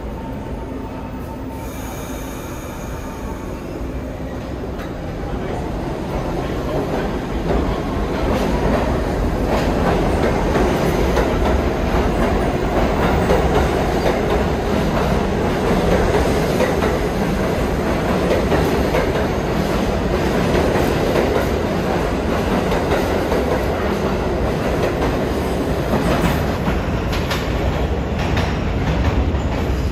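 New York City subway train running on the rails, wheels clattering and squealing, growing louder over the first ten seconds and then holding steady.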